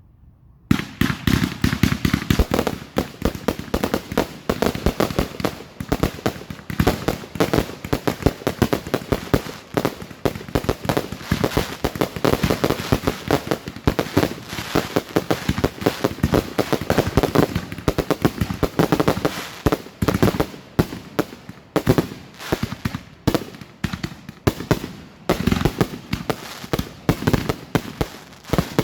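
Fireworks finale barrage: a rapid, continuous volley of bangs and crackles that starts about a second in, thinning into clusters with short gaps near the end.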